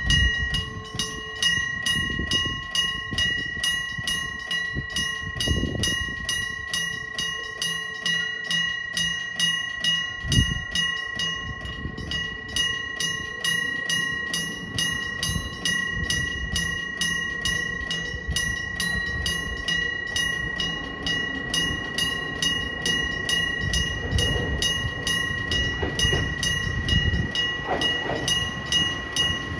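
Electric-bell level-crossing warning bell ringing steadily in a fast, even rhythm of strikes. A train rumbles through, louder near the end.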